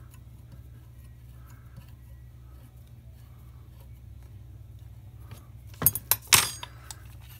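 A few sharp metal clinks about six seconds in, as a hex key and the metal gearbox housing are handled, over a steady low hum.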